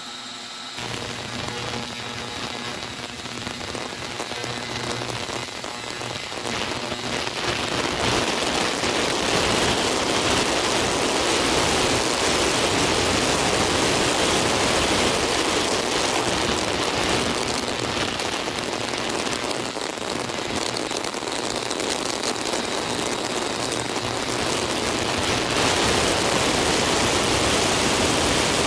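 Kendal 27-litre, 1100-watt heated ultrasonic cleaning tank running with its lid on: a loud, steady hiss as the ultrasound works a dirty motorcycle wiring harness in cleaning solution. It comes on about a second in and gets louder around eight seconds in.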